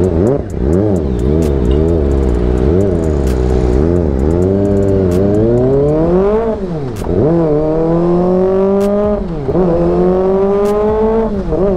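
Kawasaki ZX-25R's 249 cc inline-four through an aftermarket AR full-system exhaust, revved in a quick series of short blips. It then pulls away hard through the gears in three long rising sweeps, the pitch dropping sharply at each upshift.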